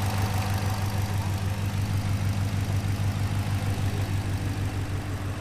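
Ford Shelby GT350's 5.2-litre flat-plane-crank V8 idling steadily through newly installed long-tube headers and a full exhaust, running fine.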